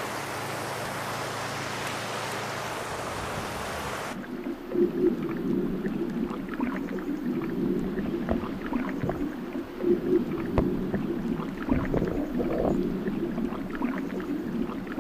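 Water rushing over a beaver dam as a steady hiss. About four seconds in, it gives way abruptly to muffled underwater gurgling with scattered knocks and clicks, as heard from below the surface of the beaver pond.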